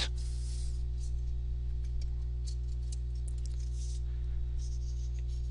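Steady low electrical hum, the recording's background noise, with a few faint ticks and clicks.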